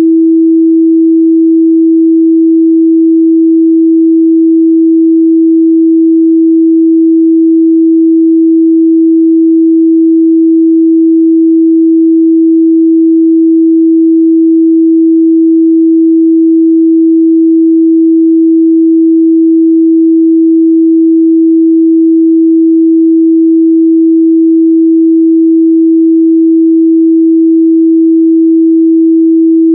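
Steady, loud 326 Hz sine test tone, one unchanging pure pitch with no other sound.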